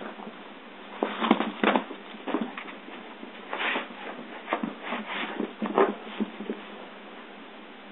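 Dog scuffling and rustling on a rug against the base of a couch: a run of irregular short scrapes and bumps that thins out near the end.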